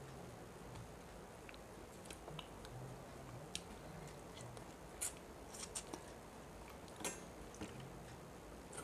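A person eating rice and rohu fish curry by hand: quiet chewing and mouth smacks, with a few short sharp clicks, the loudest about five and seven seconds in.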